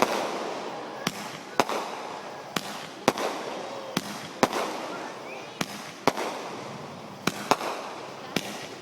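Fireworks going off: about a dozen sharp bangs, often in pairs about half a second apart, each followed by a fading hiss.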